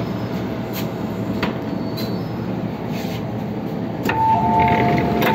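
MTR M-Train, a Metro-Cammell electric metro train, running through the tunnel and slowing into a station, with a steady rumble and a few sharp clicks from the wheels. About four seconds in, a pair of higher steady tones comes in and the sound grows louder as it draws along the platform.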